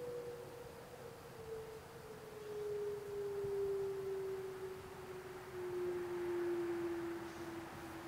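Whelen WPS-2740 dual-tone electronic siren sounding one steady tone that glides slowly down in pitch throughout, winding down at the end of its signal.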